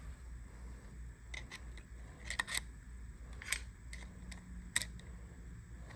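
Light, scattered metallic clicks and taps, about eight in all with a quick cluster around two and a half seconds in, as small parts of a Remington New Model Army cap-and-ball revolver's lockwork are worked loose and handled.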